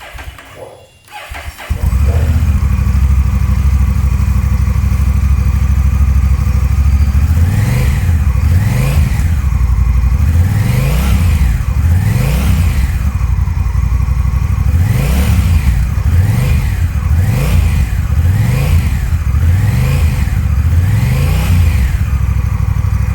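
Honda Rebel 1100's 1,084 cc parallel-twin engine on its stock exhaust, starting up and catching about two seconds in. It idles steadily, then from about a third of the way through is revved in a series of short throttle blips that rise and fall in pitch.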